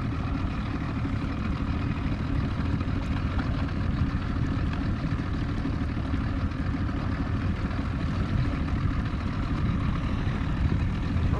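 A boat's motor running steadily, a low, even rumble with no change in pitch.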